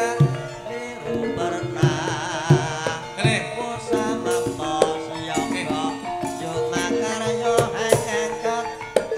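Javanese gamelan playing for a tayub dance: kendang hand-drum strokes over ringing metallophone tones, with a wavering melodic line about two seconds in.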